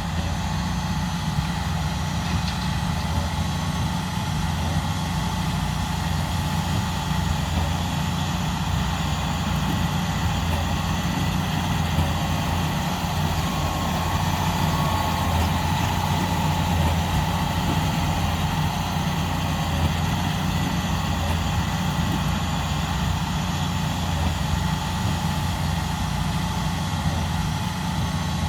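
John Deere 8RX tracked tractor's diesel engine running steadily, pulling a big square baler through straw.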